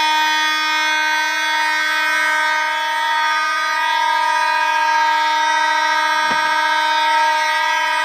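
Two vintage vibratone electronic fire alarm horns, a Kidde FH104 and an ADT B3407-024, sounding together on continuous: a loud, steady, unbroken buzzy horn tone. A brief knock is heard about six seconds in.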